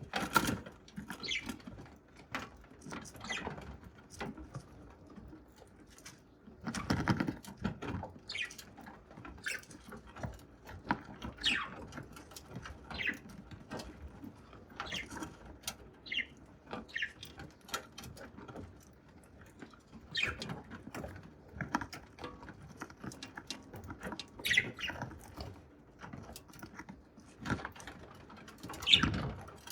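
Budgerigar cracking and husking grains with its beak: irregular small clicks and crunches, with louder bursts of crunching about seven seconds in and near the end.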